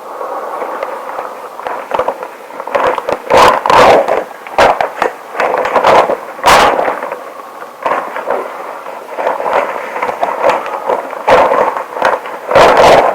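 Long rubber gloves rubbed together close to the microphone: irregular crackling friction with sharp clicks, and a few louder bursts of rubbing.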